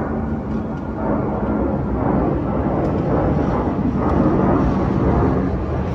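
Airbus A330-300 airliner's twin jet engines at climb-out thrust, passing overhead: a loud, steady, rough roar, strongest in the low end.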